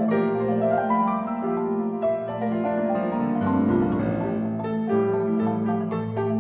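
Marimba, played with mallets, and grand piano playing together in a fast, dense classical passage, with sustained low notes under quick runs.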